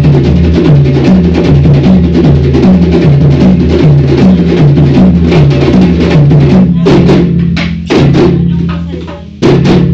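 A djembe drum circle playing a fast, steady interlocking rhythm with deep bass tones. About seven seconds in it breaks into sparser, heavy accented strikes and dies away, then the drums all strike together again near the end.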